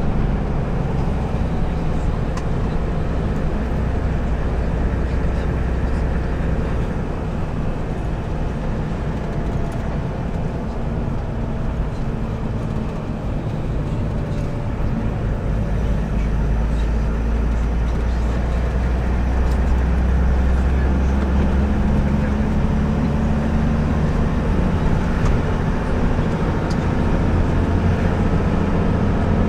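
Steady engine drone and rumbling road and wind noise from the moving vehicle carrying the camera, growing a little louder about two-thirds of the way through.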